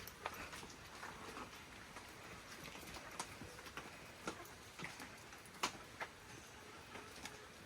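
Faint, irregular light clicks and taps over a low background hiss, with the sharpest tap about five and a half seconds in.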